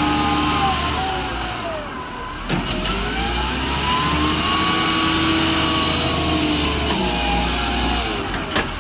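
Excavator's diesel engine running under load, its pitch rising and falling as the hydraulics work, with a sharp knock about two and a half seconds in and another near the end.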